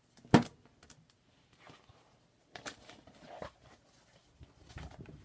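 Hands handling a collector's tin and brushing crumbs off it: a sharp knock about a third of a second in, then scattered rustles and light knocks.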